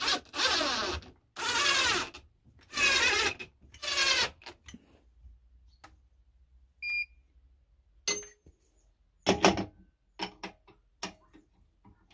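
Cordless drill-driver running in four bursts of about a second each, its pitch wavering as it drives screws through a metal faceplate into a wooden bowl blank. About seven seconds in, a short beep from the lathe's control panel, then several metal clanks and knocks as the faceplate is fitted onto the lathe spindle, the loudest near nine and a half seconds.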